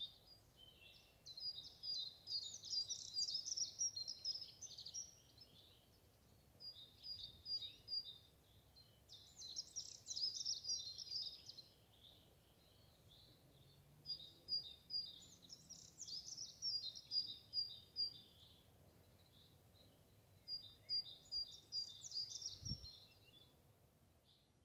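A songbird singing: four high song phrases a few seconds apart, each a run of short repeated notes breaking into a faster jumble, over faint outdoor background noise. A single low thump near the end.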